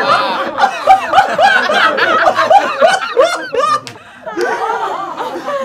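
Several people laughing loudly together in quick, repeated peals. The laughter drops off about four seconds in, then picks up again.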